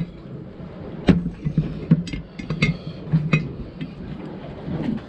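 Metal clinks and knocks from a large adjustable wrench working on a corroded metal pump elbow fitting as a new engine anode is fitted. There are half a dozen irregular sharp strikes, the loudest between one and three and a half seconds in.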